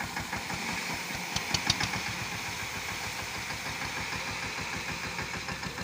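Tractor's diesel engine running steadily with an even throb while its hydraulics hold the trolley tipped to empty its grain. A short run of sharp clicks comes about a second and a half in.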